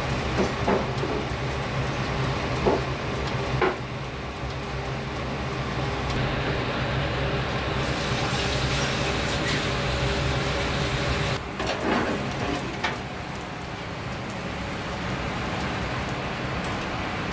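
Steady hum and hiss of kitchen machinery, with a few sharp metallic clicks near the start and again around the middle.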